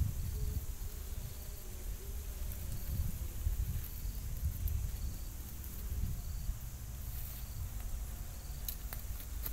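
Steady high-pitched insect chorus with a short chirp repeating about once a second, over a low rumble; a couple of sharp clicks about nine seconds in.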